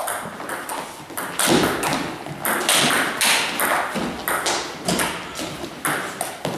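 Table tennis rally: the celluloid ball clicks sharply off the rackets and the table, several hits a second in a quick, uneven run.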